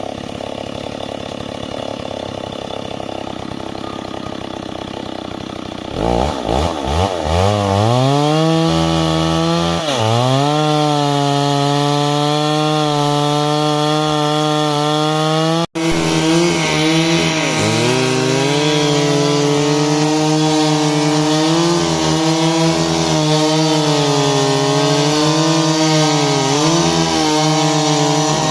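Stihl MS 382 two-stroke chainsaw running at lower speed, then opened up to full throttle about six seconds in and held there. Its high pitch sags every so often as the chain bites into wood under load. The sound breaks off for an instant midway.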